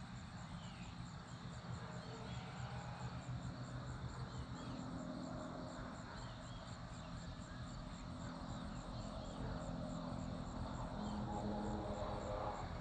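A racing quadcopter's brushless motors humming from a distance, the pitch shifting now and then, growing louder toward the end as it flies back. An insect keeps up a steady chirping of about three a second.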